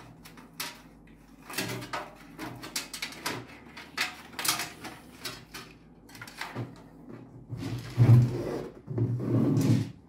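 Handling noise of a PC case's front-panel connector cables being pulled out and sorted: a run of light clicks and rustles, with louder rubbing and knocking in the last couple of seconds.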